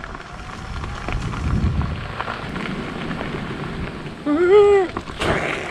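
Wheels rolling over a gravel forest track, a steady crunching hiss. About four seconds in, a person gives a short, loud call that rises and then falls in pitch, followed by a brief clatter.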